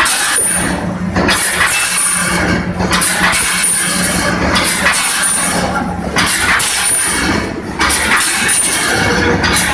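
Wire mesh resistance welding machine running continuously: a loud mechanical clatter and hiss that repeats about every one and a half seconds as each cross wire is fed and welded, over a steady low hum.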